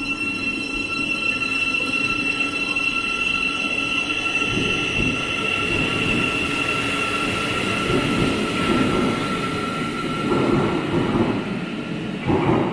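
Siemens Class 700 electric multiple unit pulling out of an underground platform: a steady high electric whine from the train, with wheel and rail rumble building from about four seconds in as it gathers speed. The whine fades out towards the end, and a brief louder rush comes right at the close.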